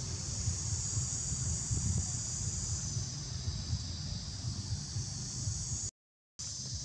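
Steady high-pitched drone of insects in the surrounding trees, over a low rumble of wind on the microphone. The sound cuts out completely for about half a second near the end.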